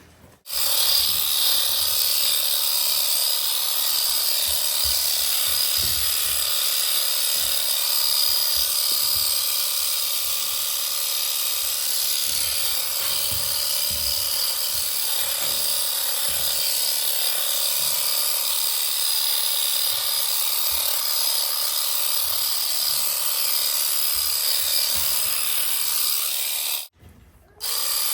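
Electric sheep shears running with a steady buzz while dagging a lamb, clipping soiled wool from its rear end; the sound cuts out briefly near the end and then starts again.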